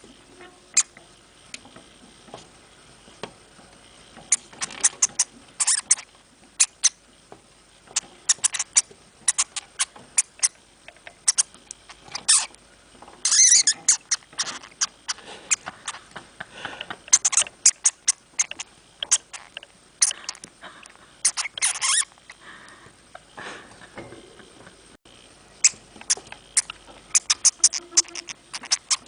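Pet hamster making rapid, irregular short clicks and scratchy sounds that bunch into denser flurries every few seconds.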